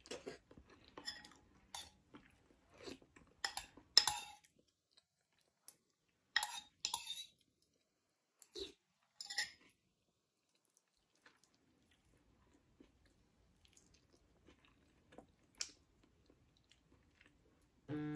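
Close-up chewing and mouth smacking while eating a chicken wing by hand, in irregular clusters of short wet clicks, livelier in the first half and faint after that.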